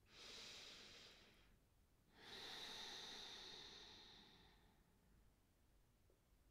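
A woman breathing audibly in a slow yoga rhythm: one breath, a short pause, then a longer, louder breath that slowly fades out.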